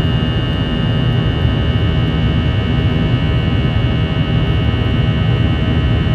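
Airbus A321-211 cabin noise during climb-out: the CFM56-5B turbofan engines under power give a steady low rumble with a steady high whine over it, heard from inside the cabin.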